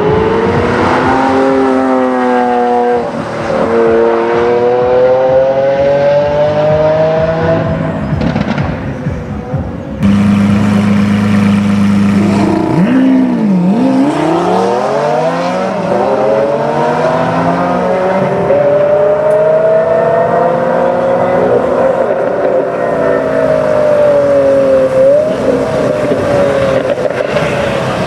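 Lamborghini Aventador S's naturally aspirated V12 accelerating hard, its pitch climbing through the gears with a short drop at each upshift. About ten seconds in the sound cuts abruptly to the engine running at a steady low speed. It then dips and pulls up through the gears again, the pitch slowly falling away near the end.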